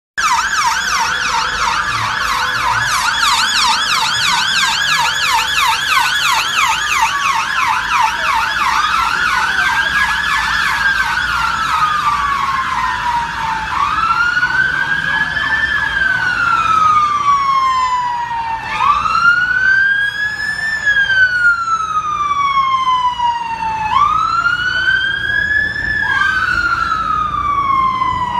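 Emergency vehicle sirens. For about the first twelve seconds a fast yelp sweeps rapidly up and down over a slower wail. After that two or more wails overlap, each rising quickly and falling slowly.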